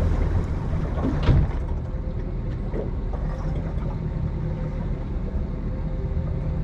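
A boat motor idling steadily, with wind and water noise, while slow trolling. A single short knock sounds about a second in.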